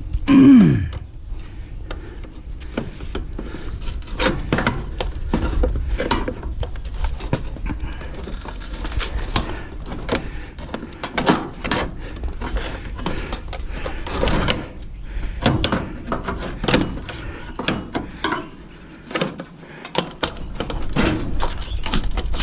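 Sheet metal of a stove being pried and torn apart by hand with a pry bar: irregular clanks, knocks and scraping of aluminum and steel panels, with a loud short squeal dropping in pitch just after the start.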